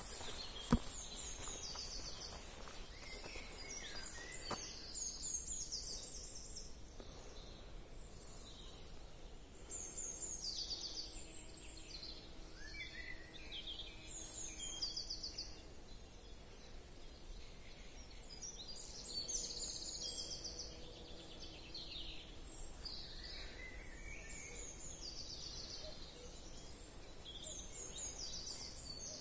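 Small songbirds singing in woodland: short high trills and chirps from several birds, coming again and again, over a faint steady background hiss. A single sharp click about a second in.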